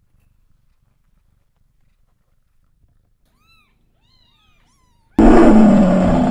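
A few faint, high kitten mews rising and falling in pitch, then about five seconds in a sudden loud lion roar sound effect.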